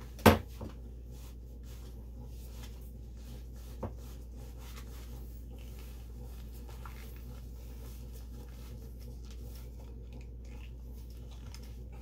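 Chaoren ratchet belt being put on and fastened: a sharp click about a quarter second in and a smaller one near four seconds, with faint clicking and rustling as the strap is fed through the ratchet buckle, over a steady low hum.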